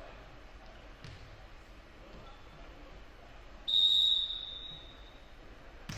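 Referee's whistle: one short, steady, high blast about two thirds of the way in, trailing off in the echo of the gym. A sharp thump, a ball striking, comes near the end.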